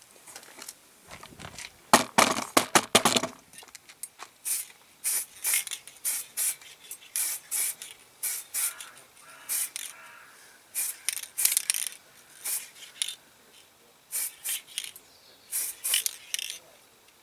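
Aerosol spray paint can putting a coat of colour on a small diecast model: a loud rattle about two seconds in as the can is shaken, then many short bursts of spray hiss with brief pauses between.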